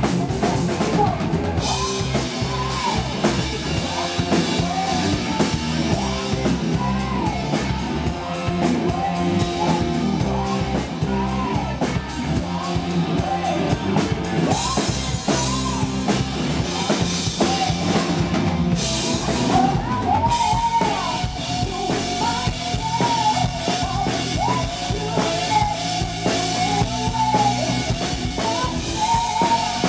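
Live rock band playing: a woman singing lead over electric guitar and a drum kit with steady cymbals and bass drum.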